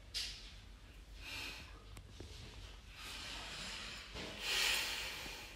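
A woman breathing out: two short puffs through the nose, then a long, louder sigh-like breath out near the end.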